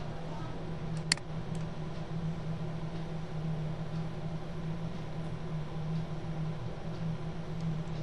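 Steady low hum with hiss, the background noise of a computer or room mic. About a second in comes one sharp click, with a couple of fainter ticks around it.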